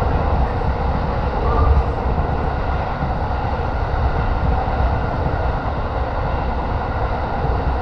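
Joban Line electric commuter train running, heard from inside the car: a steady rumble of wheels on rail and running noise, with no distinct clacks or changes.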